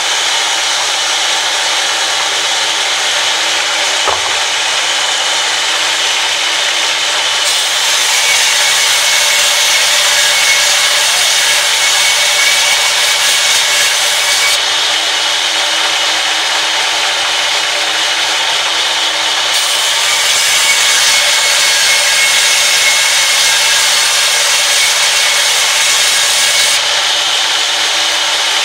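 Sawmill band saw running steadily and ripping a wooden board lengthwise: two long cuts, each several seconds of louder, hissing sawing noise, with the blade running free before, between and after them.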